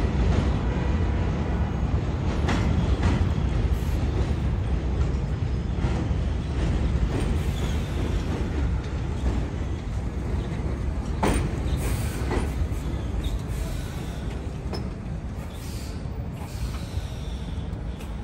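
R33/R36 'Redbird' subway cars pulling into an elevated station: a steady low rumble of wheels and running gear on the rails, with a couple of sharp metallic clanks partway through. The rumble eases off near the end as the train slows alongside the platform.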